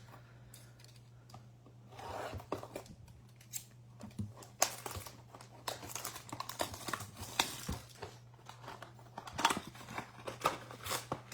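A trading-card blaster box being opened by hand: plastic wrap torn and crinkled, cardboard flaps and foil packs handled, a run of irregular sharp clicks and rustles over a steady low hum.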